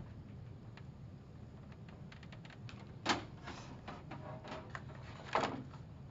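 Handling noise while computer equipment is set up on a desk: scattered light clicks and two louder knocks, one about three seconds in and one near the end.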